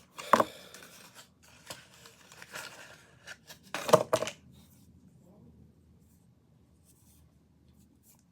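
Product packaging being handled and pulled open, rustling, with sharp clacks about half a second in and twice around four seconds in; the handling stops about five seconds in.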